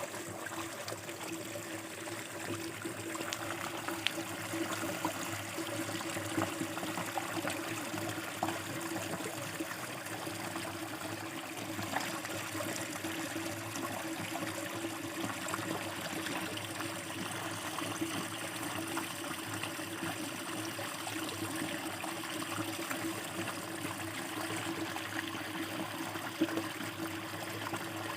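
Small river running over shallows, a steady trickling flow, with a steady low hum underneath.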